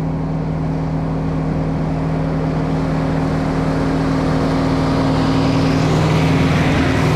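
Caterpillar 3208 V8 diesel of a White 4-225 articulated tractor running steadily under load while pulling a disc, growing louder as the tractor comes close and passes over. A rising hiss of disc blades cutting through the soil and corn stubble joins in over the last couple of seconds.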